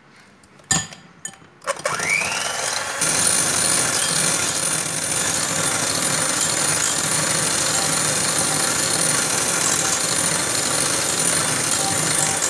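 A few clicks, then an electric hand mixer switches on about two seconds in, its motor whining up to speed. It gets louder about three seconds in and runs steadily as its beaters whip egg whites and icing sugar in a glass bowl.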